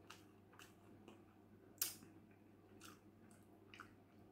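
Faint mouth sounds of a person chewing a bite of burger: a few soft, irregular wet clicks, the most distinct about two seconds in.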